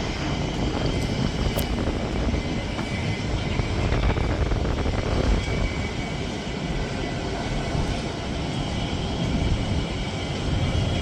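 Steady rumbling noise of jet airliner engines, with no clear rise or fall.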